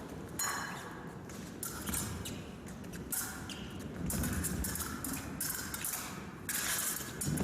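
Épée fencing bout in play: shoes shuffling, squeaking and tapping on the piste, with sharp clicks and short metallic pings of the blades meeting. It grows louder and busier near the end, just before a touch is scored.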